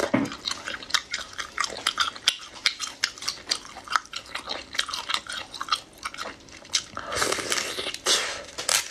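Close-miked eating: wet chewing and lip-smacking, with many quick sharp mouth clicks, and a couple of longer breathy noises near the end as another bite goes in.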